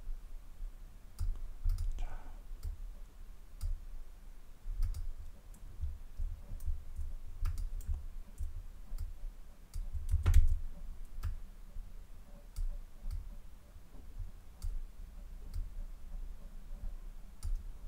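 Irregular clicking of a computer mouse and keyboard during editing work, over soft low thumps, the loudest about ten seconds in.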